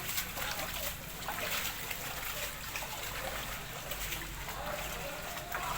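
Water trickling and splashing, with irregular small splashes over a steady rush.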